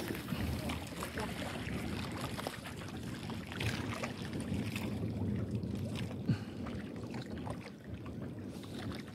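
Steady water and wind noise around a small boat at sea: waves lapping at the hull and wind on the microphone, with scattered small clicks and one sharp knock about six seconds in.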